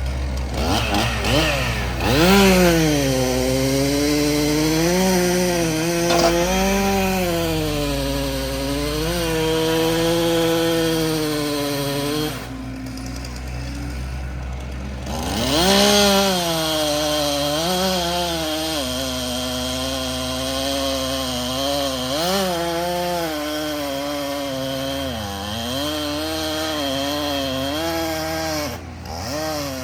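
Chainsaw cutting through oak wood, its pitch dipping as it bogs in the cut and rising again. It drops out about twelve seconds in and starts cutting again about three seconds later. A low steady engine hum runs underneath.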